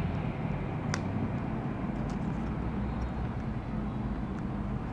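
Steady low background rumble with one faint click about a second in.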